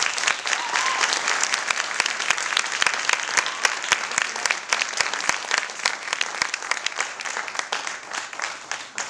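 Audience applauding, many people clapping at once, slowly dying down near the end.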